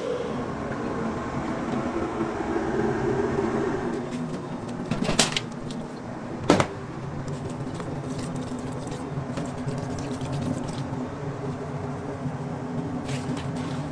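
Steady mechanical hum of a commercial kitchen, with two sharp knocks about a second apart a third of the way in.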